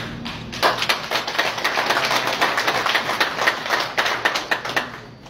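Audience applauding, a dense patter of many hands that starts about half a second in and stops shortly before the end.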